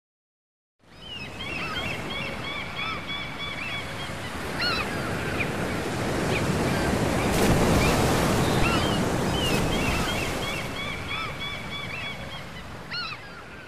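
Surf washing on a shore with gulls crying, starting about a second in. The waves swell to their loudest around the middle and ease off near the end, while the gulls give many short, repeated calls throughout.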